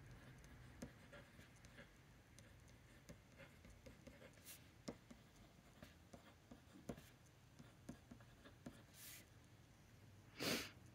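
Faint scratching and small irregular ticks of a TWSBI Eco fountain pen's broad steel nib writing on paper. Near the end there is a brief, louder whoosh.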